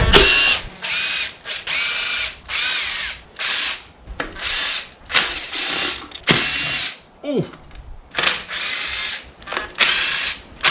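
Power drill-driver spinning out cap head bolts from an engine in about a dozen short half-second bursts, each a rising motor whine. There is a pause about two-thirds of the way through.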